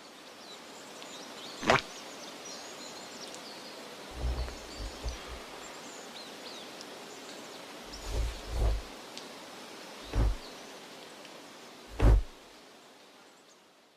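Steady outdoor background hiss with faint high chirps, broken by a handful of dull thumps, the loudest near the end.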